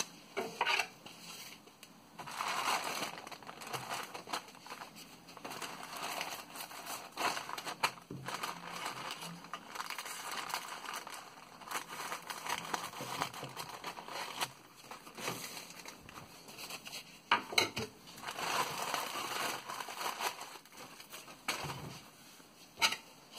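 Plastic mailing bag crinkling and rustling as it is cut open with scissors and the foam-wrapped item inside is handled, with a few sharp clicks along the way.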